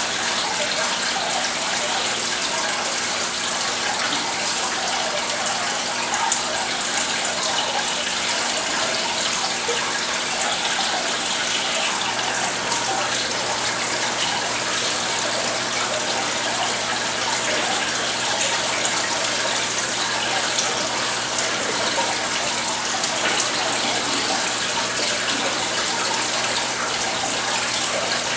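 Aquarium filtration running: a steady rush of water falling and splashing, with a low pump hum underneath. A further low hum tone comes in about twelve seconds in.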